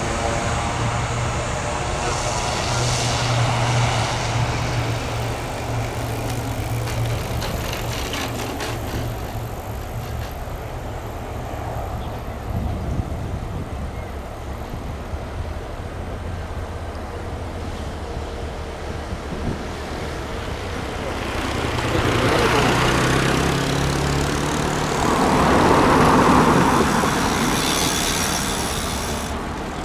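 Fokker 50 twin-turboprop engines giving a steady low drone mixed with road traffic noise, swelling louder about twenty-two seconds in and peaking a few seconds later before easing off.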